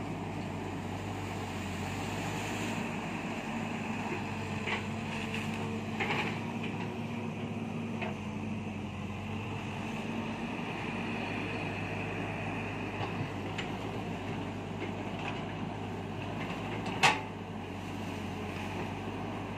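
Caterpillar 312 excavator running steadily as it pushes over banana trees, with a steady whine through the first half and a few knocks. A single sharp crack about 17 seconds in is the loudest sound.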